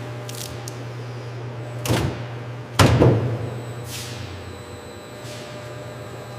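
Steady low machine hum with two sharp knocks about a second apart, the second the loudest, then a fainter swish.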